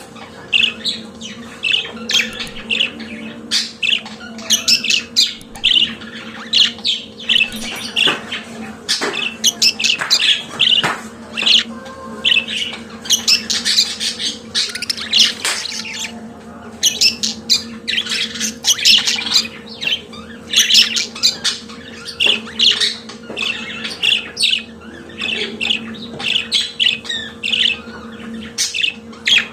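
Budgerigars chattering and warbling: a rapid, unbroken run of short chirps and squawks. A steady low hum sits beneath.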